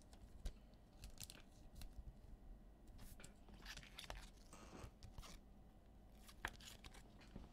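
Near silence with faint handling noises: scattered light clicks and rustles of trading cards and pack wrappers being handled, with a short rustling scrape about halfway through.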